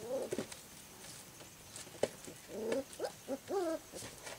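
Four-week-old golden retriever puppies whining: short, high-pitched cries that rise and fall. One comes at the start, and a quick run of several comes about two and a half to three and a half seconds in.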